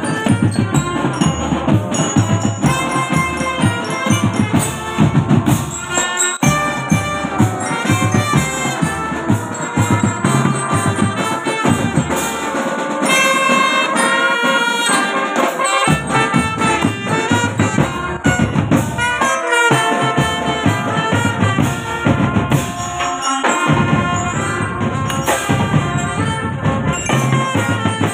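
A school marching drum band playing: trumpets and other brass carry the tune over bass and snare drums. Around the middle the drums drop out for a few seconds, then come back in.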